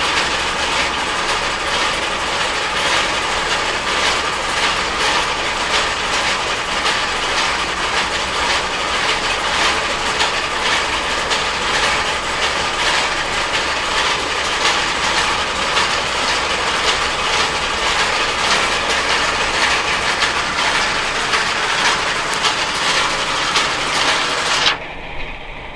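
Rotary sand dryer drum turning at 30 RPM, a steady dense clatter of rapid clicks. The sound drops off sharply about a second before the end.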